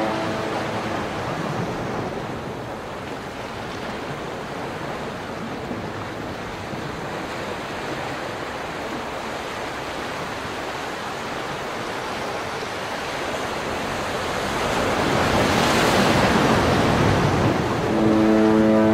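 Ocean surf: a steady rush of waves that swells into a louder wash about three-quarters of the way through.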